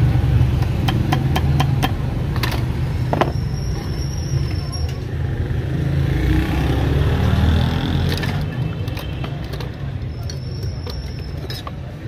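Steady low rumble of road traffic, with sharp metallic clicks and taps from small steel parts and hand tools being handled at a bench vise.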